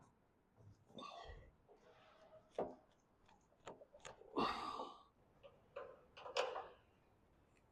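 Scattered faint clicks, knocks and scrapes of bolts and metal fender parts being handled and fitted by hand, with a longer scraping rustle about halfway through.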